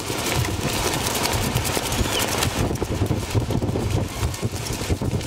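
Wind buffeting the microphone: a steady rush with an uneven low rumble.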